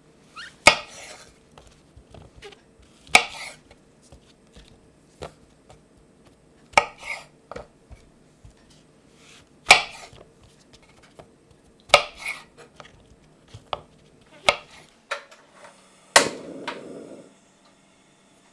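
A chef's knife cutting chestnut mushrooms into quarters on a wooden cutting board. Sharp knocks come as the blade meets the board, about one every two to three seconds, with light clicks between. A short rustle follows the last knock.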